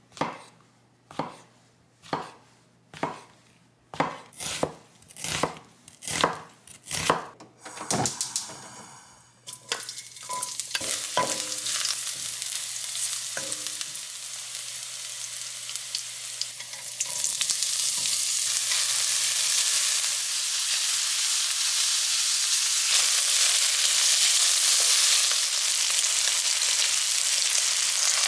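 A chef's knife slicing button mushrooms on a thick wooden cutting board: about a dozen knocks on the board, coming faster toward the end. Then garlic frying in oil in a nonstick pan, a steady sizzle that gets louder about halfway through.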